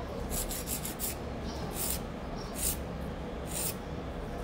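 A hand nail file rasping in short, irregular strokes across an upper-form gel nail as it is shaped.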